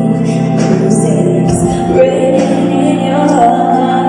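Live pop ballad played by a band, with a woman singing the lead over sustained chords.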